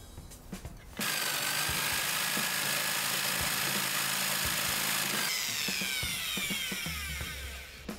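A power tool starts about a second in and runs at full speed with a steady whine for about four seconds, then is released and its motor winds down with a falling whine.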